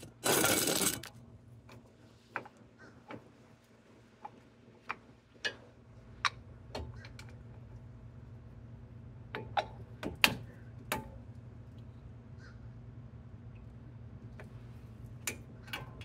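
Scattered metallic clicks and taps of a hand tool working on a Jeep Patriot's front brake caliper, some in close pairs. A loud, harsh burst of noise under a second long comes right at the start, and a steady low hum sets in about six seconds in.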